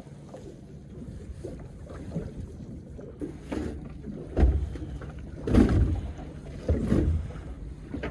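Small boat under way, its hull slapping into waves: three heavy thumps about a second apart from halfway in, over a steady rush of wind and water.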